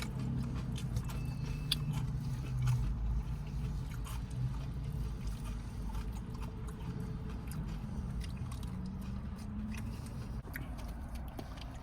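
A person chewing crispy fried takeout food with small crunching clicks, over a steady low hum.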